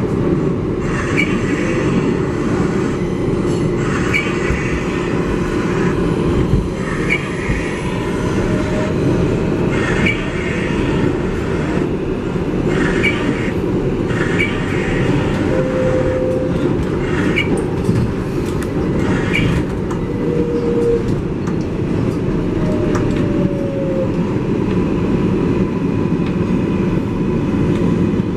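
Steady rumble inside an R188 subway car on the 7 line, with short clicks recurring about every second and a half and a few brief whining tones from the train.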